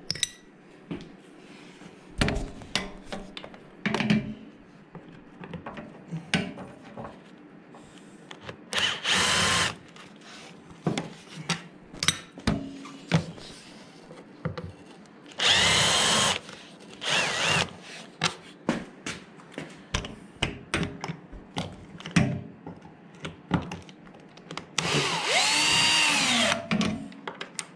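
Cordless drill/driver running screws in three short bursts, the last one speeding up and then slowing, on a 2008 Kawasaki Ninja ZX-10R's airbox area. Many clicks and knocks of tools and plastic parts being handled fall between the bursts.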